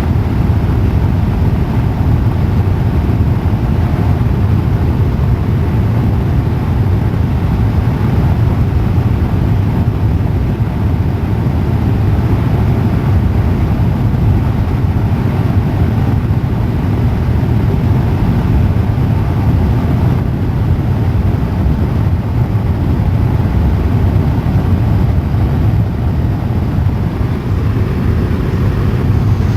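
Helicopter engine and rotor noise in flight, loud and steady throughout.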